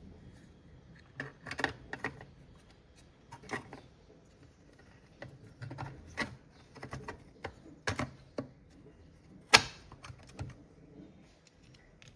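Irregular hard clicks and knocks of small parts being handled and fitted during hand assembly of a transformer. The loudest is a sharp knock about nine and a half seconds in.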